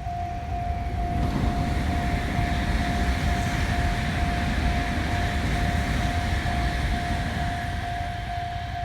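Japanese level-crossing warning bell ringing in an even, repeating tone, about twice a second. From about a second in, a passing train's rumble rises beneath it and keeps on.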